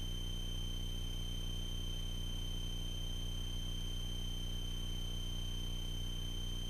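Light aircraft engine at cruise, heard as a steady low drone through the cockpit intercom, with a constant high-pitched electrical whine over it.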